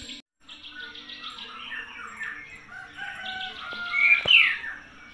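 Small birds chirping and twittering, many short calls overlapping, with a louder call about four seconds in.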